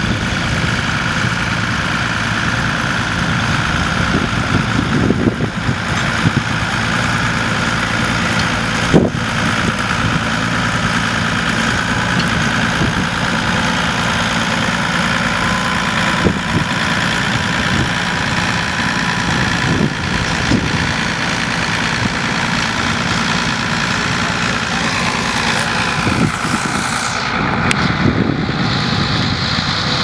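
Ford 7840 tractor's diesel engine running steadily under load as it pulls a reversible plough through stubble, with a few brief knocks along the way.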